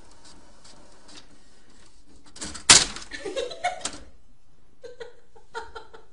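Desktop inkjet printer working, ticking about three times a second, then a sudden loud clatter of its paper feed about two and a half seconds in that dies away over a second or so. Near the end, a person laughs briefly a few times.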